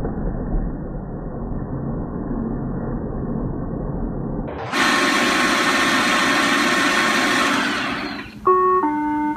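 Roomba robot vacuum motors and brushes whirring steadily: muffled at first, then louder and fuller about halfway through. Near the end come two short electronic tones, the second lower than the first.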